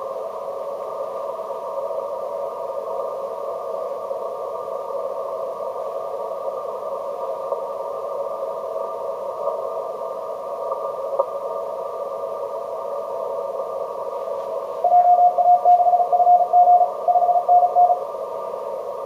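Yaesu FT-950 HF transceiver in CW mode, its speaker giving a steady hiss of band noise through a narrow filter. About 15 s in, a strong Morse code signal, a single tone keyed on and off in dots and dashes, comes through for about three seconds.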